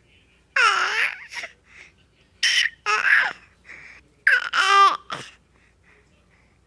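A baby's high-pitched vocalizing: three short bursts of squealing, rising and falling in pitch, the middle one starting breathy.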